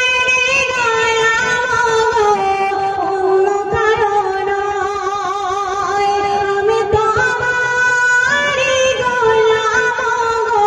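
A woman singing a Bengali Islamic gojol into a microphone, holding long notes with wavering ornaments and stepping up in pitch about eight seconds in.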